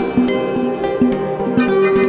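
Background music: plucked string notes over held tones.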